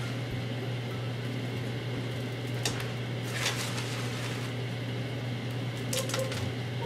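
Steady low electrical hum of room tone, with a few brief faint rustles a little under halfway through and again near the end.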